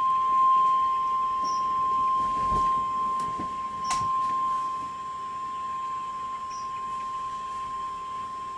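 NOAA Weather Radio's 1050 Hz warning alarm tone: a single steady high-pitched beep held without a break, the signal that a new weather warning is about to be read.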